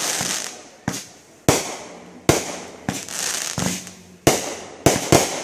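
Aerial fireworks bursting: a string of sharp bangs about once a second, two of them close together near the end, each fading out over a second or so.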